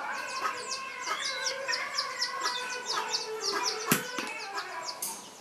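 Chickens calling, with many quick high chirps several times a second, and a single sharp knock about four seconds in.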